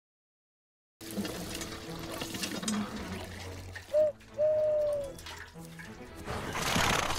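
A person's cupped-hand owl call used to summon a horse: one short hoot and then a longer one, about four seconds in, the second dipping slightly at its end. A breathy rushing swell follows near the end.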